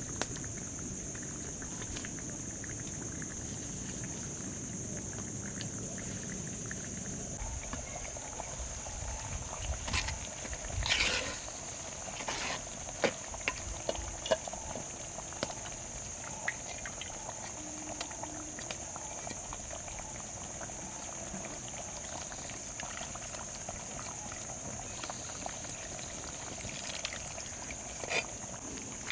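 Cooking liquid bubbling in a pot, with scattered clicks and knocks and a steady high-pitched whine throughout.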